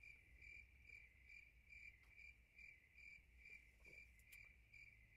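Cricket chirping: a faint, high chirp repeated evenly a little over twice a second. It starts and stops abruptly, the way a dubbed-in cricket sound effect does.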